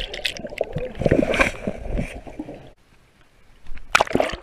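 Swimming-pool water sloshing and bubbling around a submerged camera, dying away almost to nothing about three seconds in, then a sharp splash just before the end as the camera breaks the surface.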